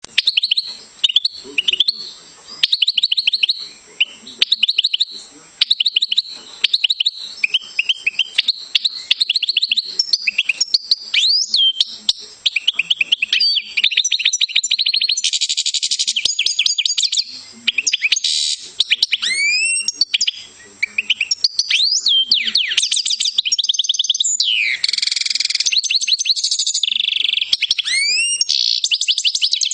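European goldfinch singing: rapid twittering trills mixed with quick rising and falling whistled notes, broken by short pauses at first and running almost without a break from about halfway through.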